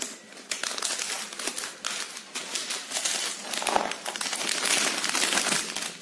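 Plastic snack pouch being cut open with scissors and handled, the plastic crinkling in a continuous run of short crackles.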